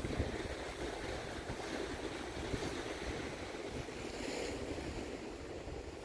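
Ocean surf washing over a rocky shoreline, a steady hiss with a louder wash about four seconds in, and wind buffeting the microphone with a low rumble.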